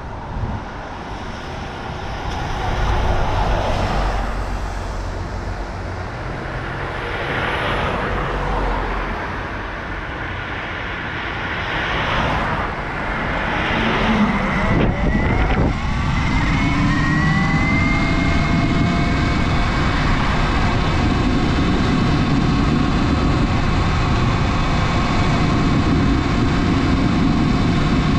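Sur Ron Light Bee electric dirt bike riding over wind and road noise. About halfway through, its motor whine rises in pitch as the bike accelerates, then holds a steady pitch.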